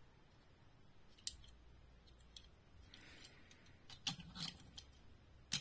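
Quiet handling sounds: a few sharp clicks and taps of small die-cast toy cars and a clear plastic packaging tray being set down and picked up, the loudest click near the end.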